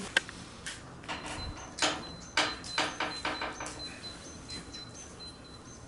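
A string of irregular knocks and rattles, a dozen or so, closely spaced in the middle stretch, with a faint thin high tone coming and going behind them.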